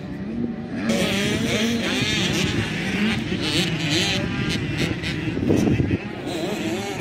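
Motocross dirt bike engines revving up and down as the bikes ride the track, their pitch rising and falling again and again.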